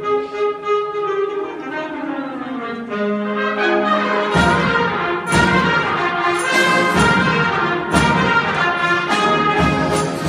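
Concert wind band playing: held brass chords with falling lines, then about four seconds in the full band comes in louder with low brass and sharp accented strokes about once a second.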